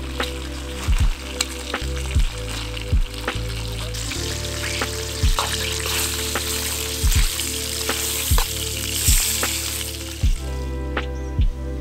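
Bacon sizzling in a frying pan over campfire coals, the hiss strongest in the middle and fading near the end. Background music with a low, thudding beat plays over it.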